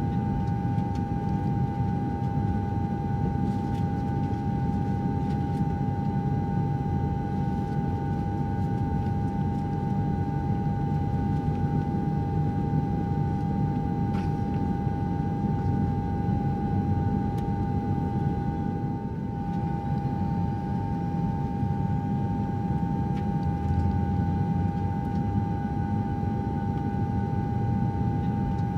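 Jet airliner cabin noise in cruise: a steady deep rush of engine and airflow, with a steady high whine on top.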